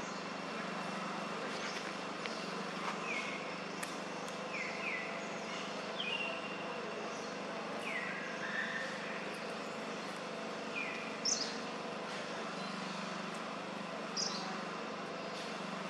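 Steady outdoor background hum with short falling chirps repeating every second or two. Two louder, higher squeals stand out, about eleven and fourteen seconds in, the second from a baby macaque calling with its mouth open.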